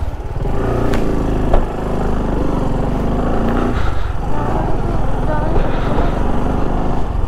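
Motorcycle engine running steadily at low revs, with faint voices in the background and a single click about a second and a half in.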